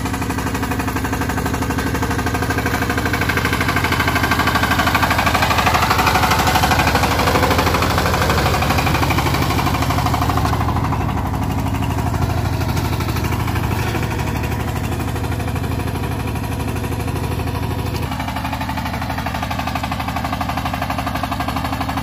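Kirloskar Mega T15 power tiller's single-cylinder diesel engine running steadily under load while ploughing soil, with a fast, even beat.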